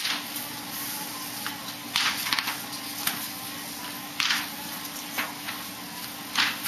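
Sheets of paper rustling and crackling in short bursts, about five times, as handheld paper signs are shuffled and flipped, over a steady low hum.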